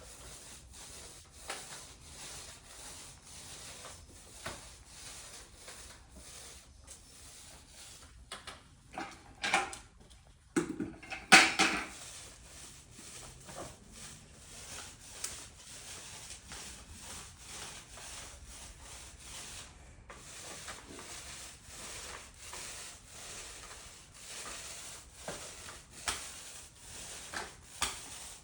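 Repeated rubbing or scraping strokes, with a few louder knocks about ten seconds in.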